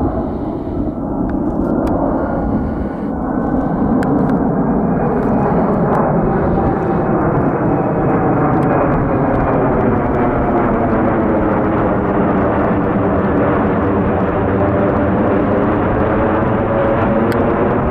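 Airbus A380 airliner passing low overhead on landing approach, its four jet engines loud and steady, with a whine that slowly falls in pitch as it goes over. The noise swells over the first few seconds and then holds.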